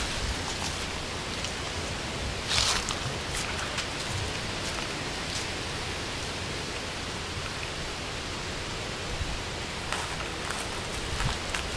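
Steady outdoor hiss with a few brief crackly rustles of dry leaf litter, the loudest about two and a half seconds in.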